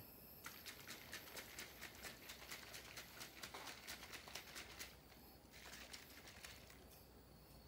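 Faint, quick light ticking, about five ticks a second for roughly four seconds, then a few fainter ticks.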